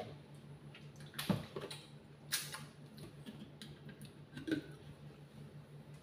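A few light knocks and clatters as a countertop blender's plastic jar and lid are handled and a milk carton is set down on the counter, over a low steady hum.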